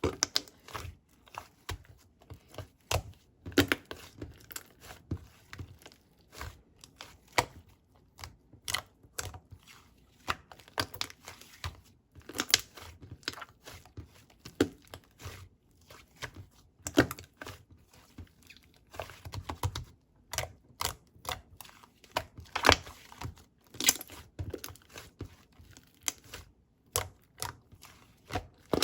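Close, irregular crinkling and tearing noises with sharp crackling clicks, a few a second, some much louder than the rest.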